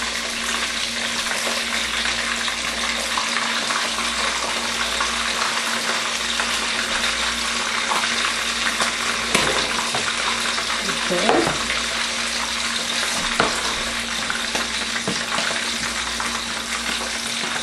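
Pieces of red snapper shallow-frying in hot oil in a wok: a steady crackling sizzle as the fish browns.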